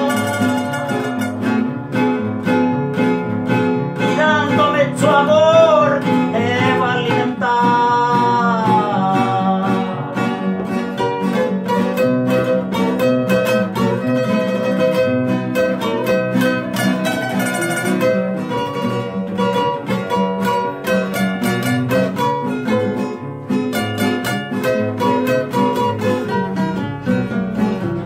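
Three acoustic guitars playing a gospel song together, strummed rhythm with a picked lead melody. A man sings over roughly the first several seconds, then the guitars carry on alone in an instrumental break.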